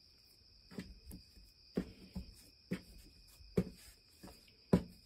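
Cracker dough being kneaded by hand on a floured countertop: about five soft thuds, roughly one a second, as the dough is pressed and turned against the counter.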